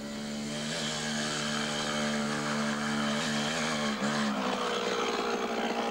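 Beta 50cc two-stroke minitrial motorcycle engine running at a steady pitch as the bike is ridden, with brief changes in revs about a second in and again around three to four seconds in.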